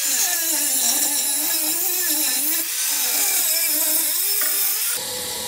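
Angle grinder with a cut-off disc cutting through steel pipe: a loud, hissing grind with the motor's pitch wavering up and down. It cuts off suddenly about five seconds in.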